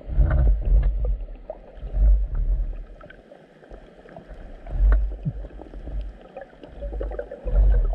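Underwater ambience heard through a GoPro: low, muffled rumbles that swell and fade every two to three seconds, with scattered faint clicks and crackles.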